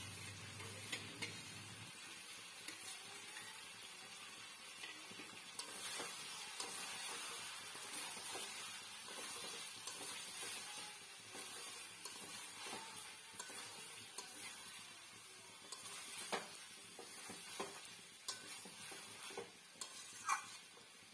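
Faint stirring and frying: a spatula scraping through prawns, jackfruit and potato in a metal kadai over a low sizzle, with scattered clicks of the spatula against the pan, a few sharper ones near the end.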